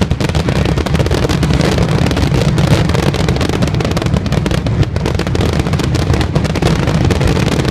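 Aerial fireworks going off in a dense, continuous barrage of rapid bangs and crackles over a heavy low rumble.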